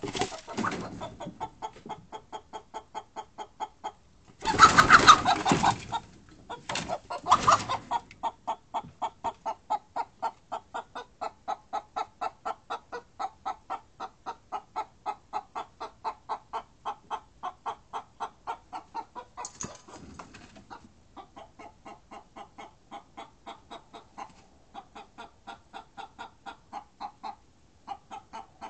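Frightened hens giving a steady run of alarm clucks, about three a second, after a predator (an opossum) got into the coop. Two loud, harsh bursts break in about five and seven seconds in.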